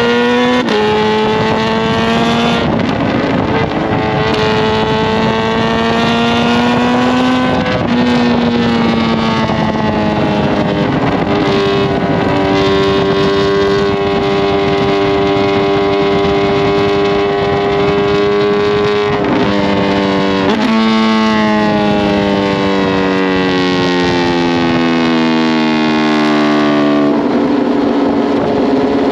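2020 Kawasaki Z H2's supercharged inline-four, with an SC Project CRT exhaust, under way. The engine note climbs and drops suddenly at upshifts about a second in and again near eight seconds, then holds steady. It jumps up at a downshift around twenty seconds and then falls away.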